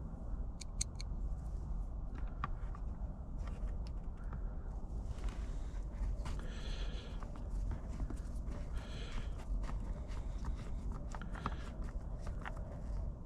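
Self-tapping screws being turned in by hand with a screwdriver: faint clicks and two short scraping spells, about halfway through and a couple of seconds later, over a steady low rumble.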